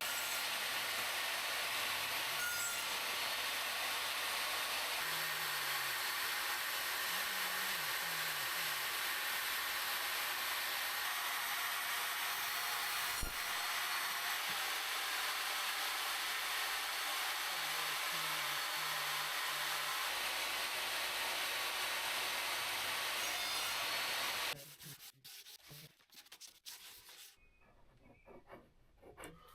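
Woodworking power tool running steadily as it machines wood, a constant hiss-like noise. It cuts off abruptly near the end.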